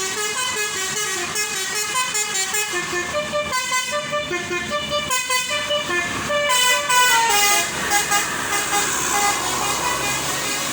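Tour bus's 'telolet basuri' multi-tone musical air horn playing a tune: a quick run of short horn notes stepping up and down in pitch, thinning out over the last few seconds.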